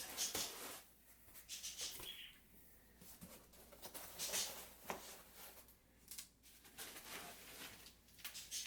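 Packaging rustling and scraping in irregular bursts as chair parts are handled and pulled out of their shipping box.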